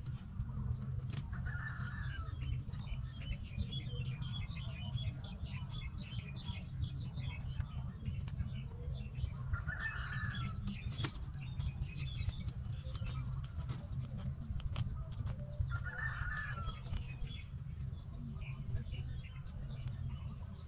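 Open-air field ambience: wind rumbling on the microphone, with small birds chirping. Three short bird calls come several seconds apart.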